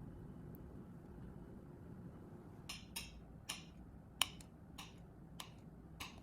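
A run of about eight short, sharp clicks and taps of small hard objects being handled, starting nearly three seconds in, one about four seconds in clearly louder than the rest, over a faint steady hum.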